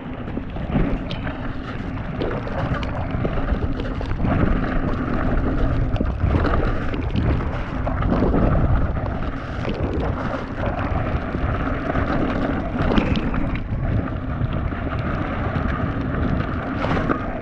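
Mountain bike clattering down a rough, rocky wet trail, with wind rushing over the GoPro's microphone and scattered knocks as the wheels hit rocks.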